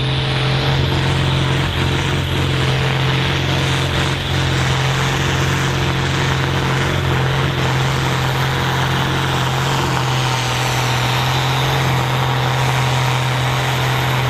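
Ford TW-25 tractor's six-cylinder turbo diesel running flat out under heavy pulling load, its note held loud and steady.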